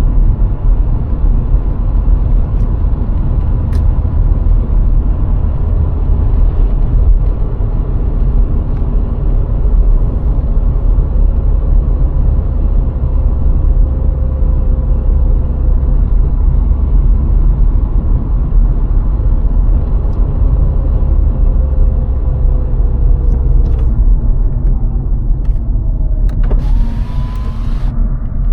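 VW Golf IV 1.6 driving on the road: a steady low rumble of engine and tyres, with a faint whine that slowly falls in pitch. Near the end a brief hiss comes in and a tone rises in pitch.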